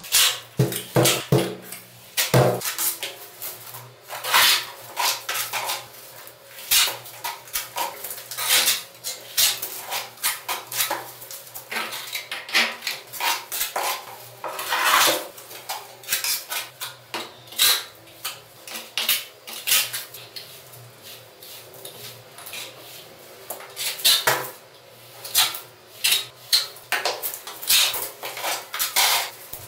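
Steel plastering trowel scraping and spreading wet gypsum plaster on a wall in repeated short strokes, with light metallic clinks, as its flat edge smooths the coat level.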